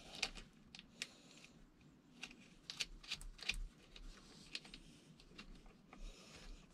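Faint, irregular small metallic clicks and taps: a nut and cable lugs being fitted onto a boat battery's terminal stud by hand.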